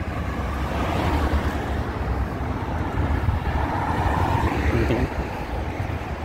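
Road traffic, with cars driving past close by and the sound swelling as each one goes by. A steady low rumble of wind on the microphone runs underneath.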